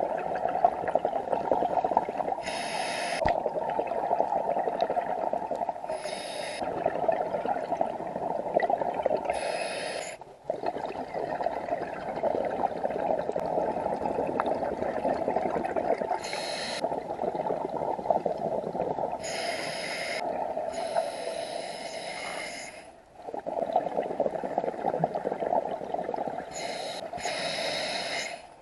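Scuba regulator breathing heard underwater: a steady rush of exhaled bubbles, broken every few seconds by a short hiss of inhalation through the regulator.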